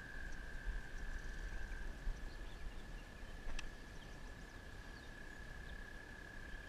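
Riverside ambience: a steady high-pitched trill holds unbroken throughout, with faint bird chirps, a low rumble of wind on the microphone, and one sharp click about three and a half seconds in.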